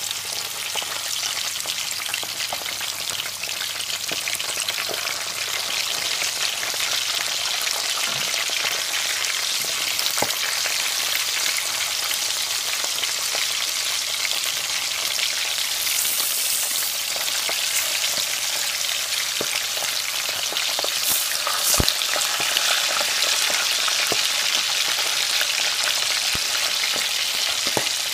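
Mackerel pieces frying in hot oil in a pot: a steady crackling sizzle that grows slightly louder as the fish browns, with a few light clicks and one sharper knock about twenty seconds in.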